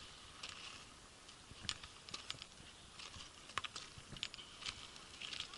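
Footsteps on loose, gritty volcanic ground: scattered faint clicks and crunches at an uneven pace, over a faint steady hiss like distant rushing water.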